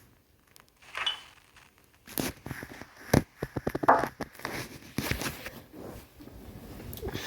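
Rustling, clicking and knocking of things being handled and gathered up, with a quick run of clicks about three seconds in.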